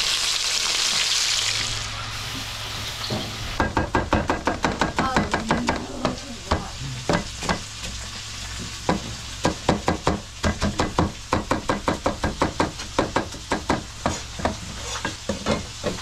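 Whole spiny lobsters sizzling in a wok for about the first three seconds, then a kitchen knife chopping onions and peppers on a cutting board in quick, steady strokes, about three or four a second.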